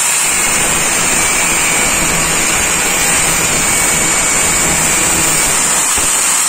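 Electric angle grinder running at speed, its disc grinding a small metal part held against it with a steady high whine over the rasp of the grinding.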